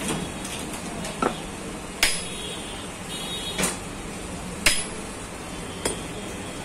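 Light metal-on-metal taps, about six at uneven intervals, on a rod driving a jammed bushing out of a Mahindra Scorpio's AC blower motor. The bushing is worn and seized, the cause of the motor's noise.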